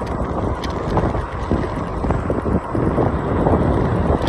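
Wind buffeting the microphone of a handheld phone on a moving electric scooter: a dense, gusty rumbling noise.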